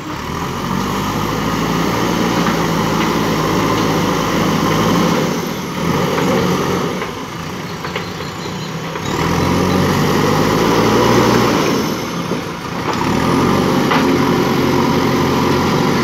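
JCB backhoe loader's diesel engine running under load as the machine drives and works its front loader bucket through soil, the engine note rising and falling several times.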